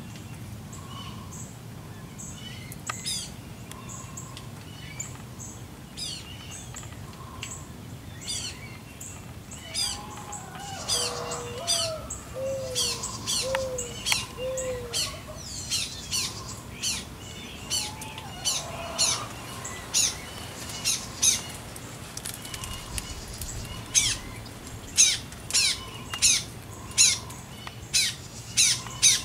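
Birds calling: short, sharp high chirps repeated over and over, coming more often and louder in the second half until there is about one a second, with a brief run of four lower, falling notes near the middle.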